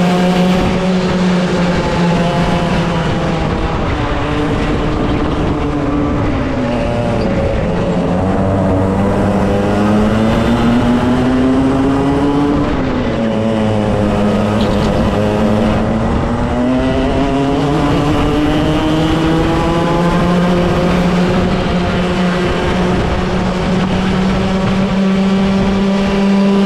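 Club100 racing kart's 100cc two-stroke engine at race pace, heard from on board. Its pitch falls as it slows for a corner about six seconds in, climbs again, dips sharply about thirteen seconds in, then climbs and holds high to the end.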